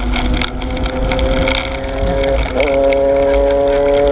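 Steady engine drone of a nearby motor vehicle over low wind rumble on the bike-mounted microphone. The engine note briefly shifts in pitch a little over halfway through, then holds louder.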